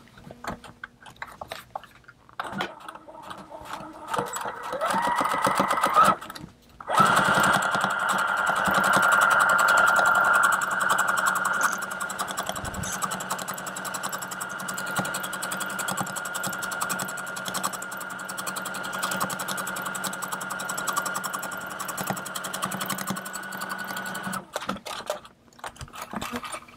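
Brother electric sewing machine stitching a seam in canvas fabric, sped up to double speed. A few short starts and stops come first, then it speeds up into a long steady run that stops a couple of seconds before the end.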